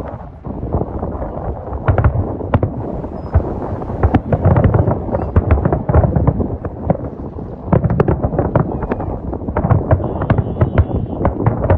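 Aerial fireworks shells bursting in quick succession, a dense string of bangs that barely lets up. It dips briefly just after the start, then thickens again.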